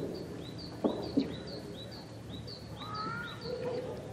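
A small bird repeating a short, high, falling chirp about twice a second, with two sharp knocks about a second in and a brief lower call near the end.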